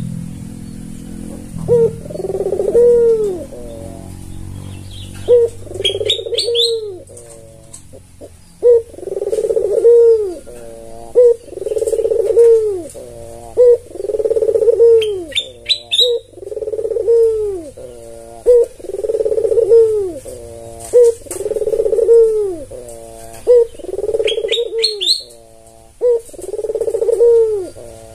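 White albino ringneck dove (puter) cooing over and over, a low arched coo roughly every one and a half to two seconds. Short high chirps cut in three times.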